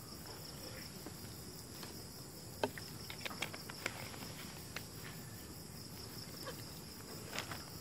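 Steady high-pitched insect chorus, with a few faint clicks through the middle.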